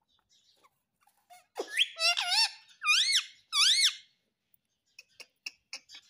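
Indian ringneck parakeet giving a string of squeaky, whistled calls: a rising sweep, a quick warble, then two arched squeaks. A few faint clicks follow near the end.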